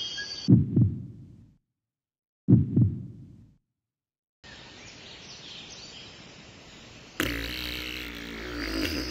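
Heartbeat sound effect: two double thumps about two seconds apart, each dying away within a second, with silence between. Afterwards a faint steady background noise, and music starts suddenly about two seconds before the end.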